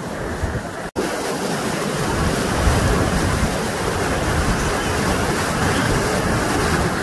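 Whitewater rapids rushing: a steady noise of churning river water. The sound drops out for a split second about a second in, then comes back a little louder.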